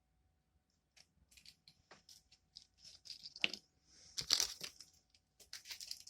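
Handling of small plastic kit items and packaging: scattered clicks with rustling and crinkling, loudest about three and a half and four and a half seconds in.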